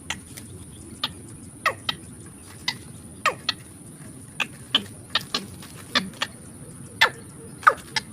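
A bird calling in short, sharp notes that each slide quickly down in pitch, about a dozen at uneven intervals, over a steady high insect-like whine.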